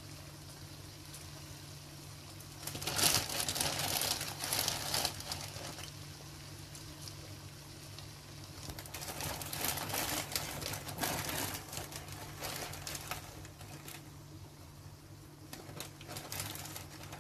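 Plastic bag rustling and crinkling as handfuls of shredded cheese are taken out and scattered over pasta in a pot. There are two long spells of rustling, about three seconds in and again from about nine seconds, and a brief one near the end, over a low steady hum.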